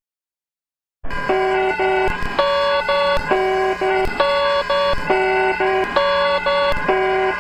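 Emergency Alert System alarm tone: electronic tones stepping between several pitches in a short pattern that repeats about once a second over a steady low hum. Silent for about the first second, then the alarm starts abruptly.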